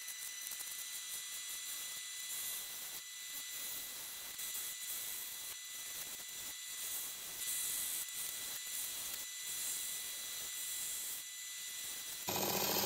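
Skew chisel taking a light shearing cut across a ring of pink ivory wood spinning on a lathe: a quiet, steady hiss with a thin steady whine underneath. Near the end the sound suddenly turns louder and rougher.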